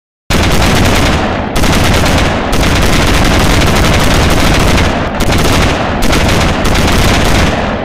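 Loud, continuous automatic gunfire in a battle sound effect, starting abruptly a moment in. It is joined from several segments, with brief abrupt breaks along the way.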